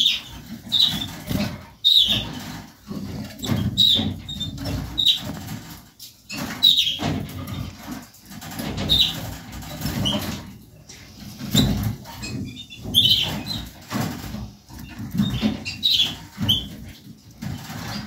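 Harlequin Portuguese canaries giving short, high chirping call notes about once a second, over low rustling and light knocks of birds moving about the wire cage.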